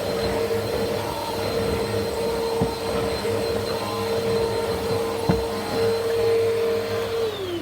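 Upright vacuum cleaner motor running steadily at full speed with a few light knocks, then switched off near the end, its whine falling away as it spins down.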